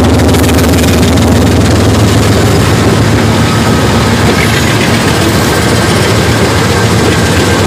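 Canadian Pacific GE diesel-electric locomotives passing close by under power, one of them smoking hard: a loud, steady, deep engine drone.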